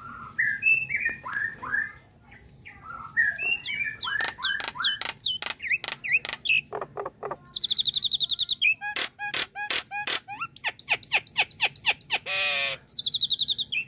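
Common myna calling: a varied run of slurred whistles, quick repeated notes and fast high chattering, with a harsh rasping note about twelve seconds in.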